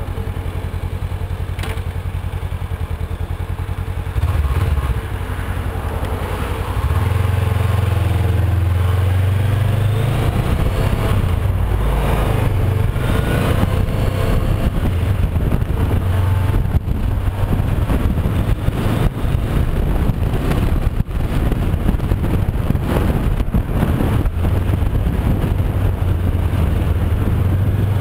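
Honda CB500X parallel-twin engine running under way, heard from the bike itself. It pulls harder about four seconds in and again about seven seconds in, then runs steadily with road noise.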